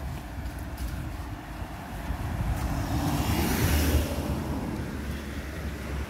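A car passes on the street. Its tyre and engine noise swells to a peak a little past halfway through, then eases, over a steady low rumble.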